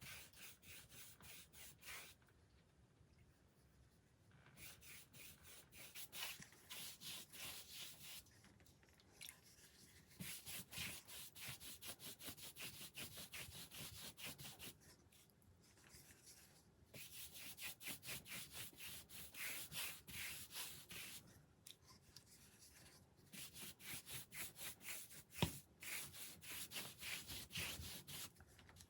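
Quick, even rubbing strokes in runs of a few seconds with short pauses between, as of hand scrubbing or sanding, with one sharp knock near the end.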